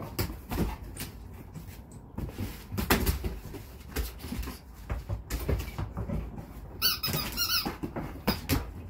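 Dog's squeaky toy squeaking in a quick run of short high squeaks near the end, with thuds of a large dog jumping and landing on the floor during play.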